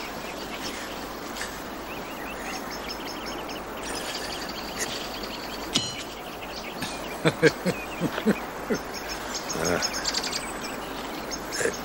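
A thrown horseshoe strikes the iron stake about six seconds in with a short metallic ring. Around seven to nine seconds a man laughs briefly. Birds chirp throughout over a steady outdoor hiss.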